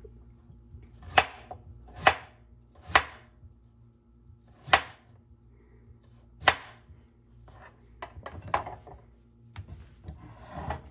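Kitchen knife slicing through a peeled potato and striking a wooden cutting board: five sharp knocks about a second apart, then lighter taps. Near the end, a short rustle of potato slices being handled in a bowl.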